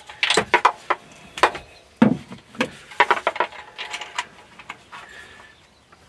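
Irregular clicks, taps and knocks of hand tools and engine parts being handled, as an ignition coil is worked loose to reach a spark plug.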